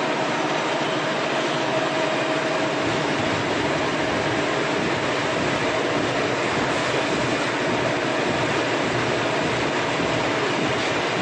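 Plywood veneer peeling line running: the spindle peeling lathe and its roller conveyors make a steady, dense mechanical noise with a constant hum through it.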